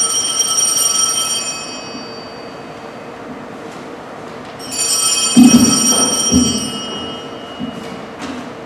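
A bright, high metallic ringing with many overtones, like a bell, sounds twice, each lasting about two seconds. A couple of dull thumps come during the second ring.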